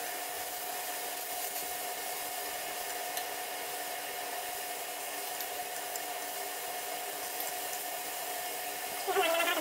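Beef slices sizzling on a tabletop electric grill over a steady whirring hum with a faint whine, with a few light clicks of chopsticks on the grill. A short rising voice-like call about nine seconds in.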